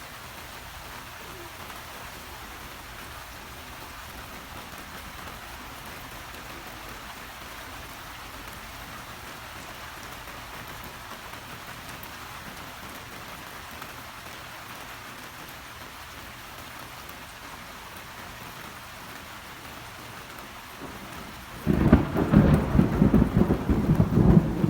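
Steady heavy rain falling, then near the end a sudden loud thunderclap that goes on rumbling.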